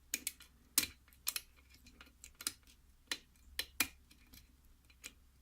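A hook pick clicking against the pins and keyway of a KIK pin-tumbler cylinder, with a dozen or so sharp, irregular clicks as pins are tapped and set during picking.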